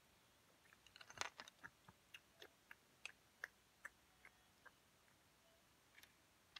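Small plastic Lego pieces clicking and tapping as they are handled on a baseplate: a quick run of small clicks, thickest about a second in, thinning out by about five seconds, with a couple more near the end.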